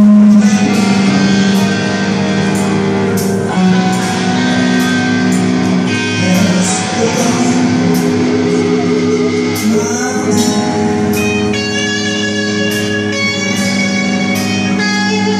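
Rock band playing live and loud: sustained electric guitar chords over a steady drum beat, with no vocals.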